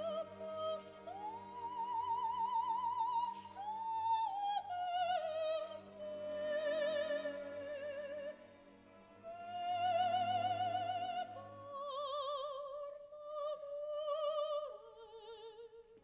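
Female opera singer singing long, high held notes with strong vibrato, breaking for a breath about nine seconds in, over soft sustained orchestral accompaniment.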